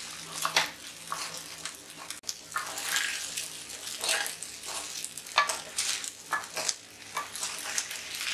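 Spatula stirring and turning sabudana khichdi (soaked sago pearls, peanuts and potato) in a pan on the stove: irregular scraping strokes over a light frying sizzle.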